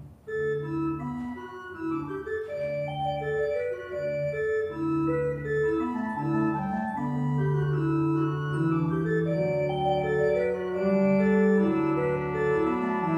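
Organ playing a church prelude: several lines of sustained notes moving over held bass notes, starting just after the opening.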